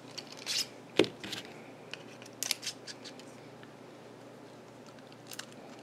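A few short, light clicks and scrapes of small tools and parts being handled on a work table, the sharpest click about a second in.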